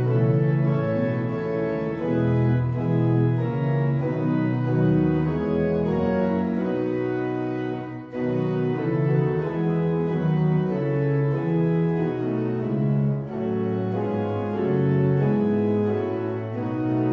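Organ music playing slow, held chords that change about once a second, with a brief drop in level about eight seconds in.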